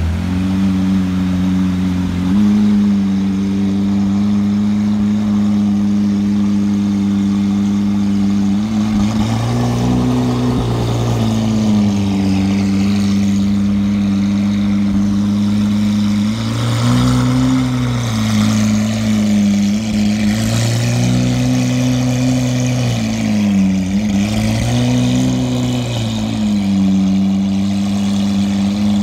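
Lamborghini Aventador's V12 running at a low, steady idle as the car rolls slowly. The note rises briefly with a few light throttle blips, about a third of the way in and three more times in the second half.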